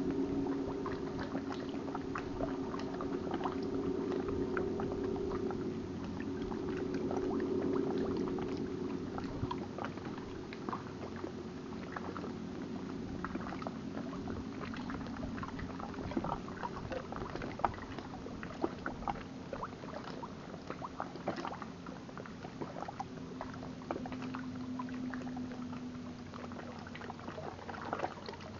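Small waves lapping and splashing against the rocks at the water's edge in many short irregular splashes. Under them runs a steady low motor hum, strongest in the first ten seconds or so and fading after that.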